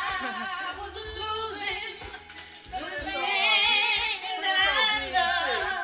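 Music with a woman singing, her voice sliding and wavering in pitch over a steady low bass.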